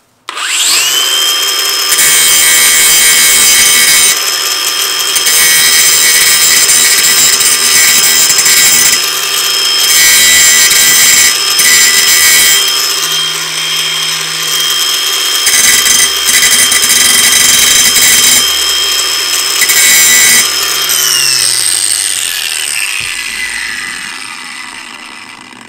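Ryobi angle grinder spinning up with a quickly rising whine, then grinding the cutting edge of a steel lawn mower blade to sharpen it, in several passes of a few seconds each: the steady motor whine is joined by a harsh grinding rasp whenever the disc bears on the metal. About 21 seconds in it is switched off and the whine falls away as the disc spins down.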